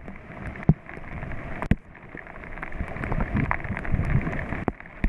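Raft crew paddling forward through river water: paddles dipping and splashing over a steady rush of water, with several sharp knocks, growing louder through the second half.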